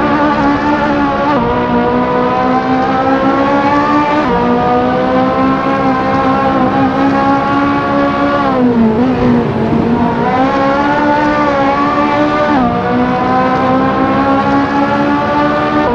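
High-revving sports-car engine under hard acceleration. Its pitch climbs and then drops sharply at quick upshifts, about a second in, about four seconds in and again about three quarters of the way through. Past the middle the revs fall away and build back up.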